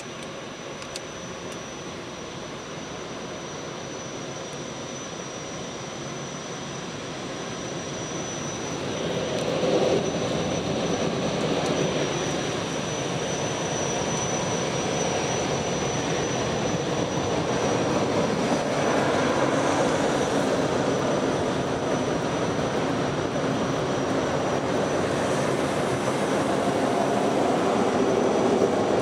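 Christ rollover car wash heard from inside the car: a steady whirring noise of the gantry's machinery, with water and polyethylene brushes working on the car body. It grows louder about nine seconds in as the gantry comes over the car and stays loud.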